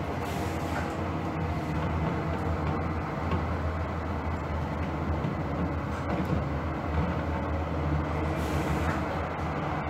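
Steady on-board running drone of a first-generation KVB B100S light-rail car built in 1977, whose 750 V DC traction motors are switched by a cam controller: a low motor hum with running noise.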